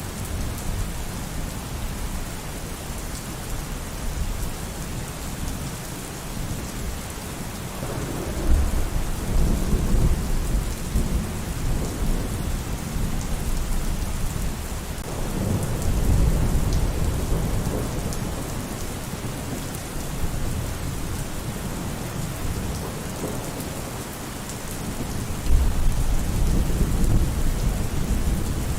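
Steady heavy rain with thunder rumbling three times, about a third of the way in, around the middle, and near the end.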